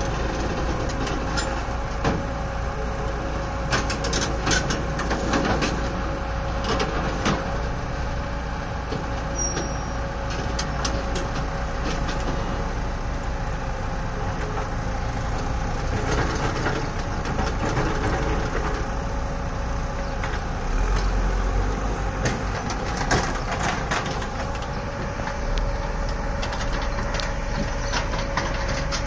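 Hyundai crawler excavator running steadily on diesel as it drives up onto a lowbed truck trailer, with scattered clanks and knocks of its steel tracks on the trailer deck and ramps.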